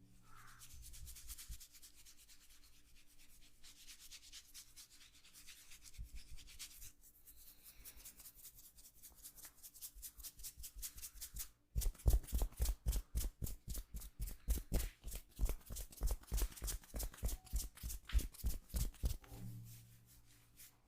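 Hands massaging skin with rapid, rhythmic rubbing strokes. They are soft at first and become much louder and firmer about twelve seconds in, at around four or five strokes a second, before stopping shortly before the end.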